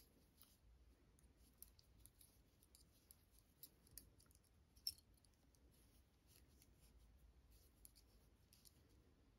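Faint, irregular clicks of metal knitting needles tapping together as stitches are worked, with one sharper click about five seconds in.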